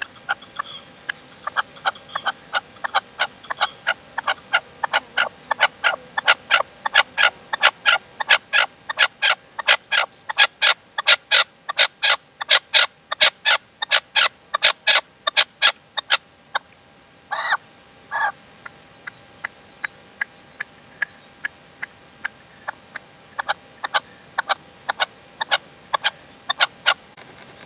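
Male red-legged partridge used as a caged decoy, calling to lure a wild male. It gives a long run of sharp, clipped notes about three a second, loudest in the middle. The run is broken by two longer drawn-out notes and then goes on more softly.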